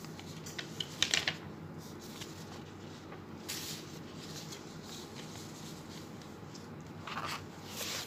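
Sheets of paper rustling and crinkling as worksheets are handled and shuffled, in a few short bursts, over a faint steady hum.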